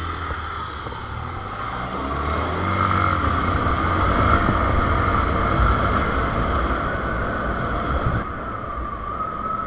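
A motor vehicle engine running with road noise, growing louder about two seconds in, holding steady, then easing off a little near the end.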